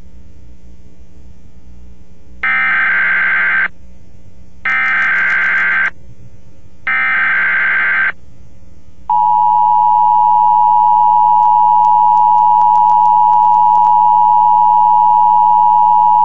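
Emergency Alert System activation: three bursts of SAME digital header data, about a second each, then the two-tone EAS attention signal (853 and 960 Hz together) starting about nine seconds in and holding steady. The header announces a National Weather Service tornado warning. A low hum sits under the quiet opening seconds.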